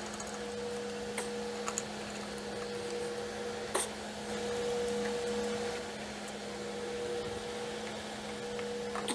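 Steady low hum with a few light clicks and taps of metal parts and tools being handled on the mixer housing during reassembly of the KitchenAid gearbox; the sharpest tap comes about four seconds in.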